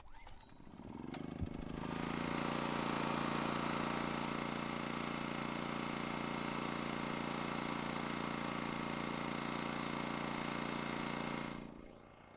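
Honda EX1000 portable inverter generator running steadily at an even, unchanging engine note. The sound swells in over the first couple of seconds and fades away near the end.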